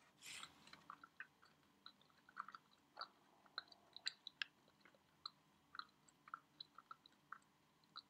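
Faint chewing of a fig-based cranberry-pistachio energy ball: soft, irregular mouth clicks and small crunches, with a short hiss about a quarter of a second in.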